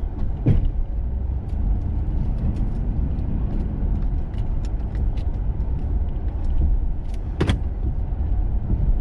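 Snow-plow truck working with a Snowdogg VXFII V-blade: a steady low engine and drivetrain rumble, with a sharp knock about half a second in, a louder one about seven and a half seconds in, and faint scattered ticks between them.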